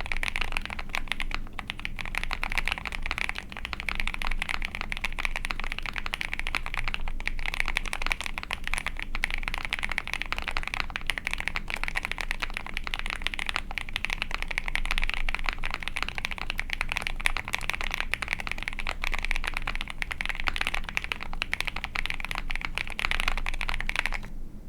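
Fast, continuous typing on a mechanical keyboard: an Ai03 Vega with a POM plate, Krytox-lubed Auralite linear switches and GMK keycaps, with dense keystroke clacks that stop just before the end.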